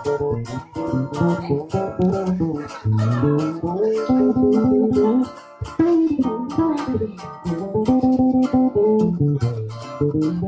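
Electric bass played solo with the fingers: an improvised run of plucked notes stepping up and down the neck, mixed with double-stops and chords, with one brief break a little past halfway.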